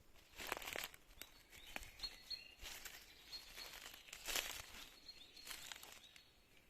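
Forest ambience: irregular rustling in dry leaves or undergrowth, with a bird giving a few short, high, steady whistled notes.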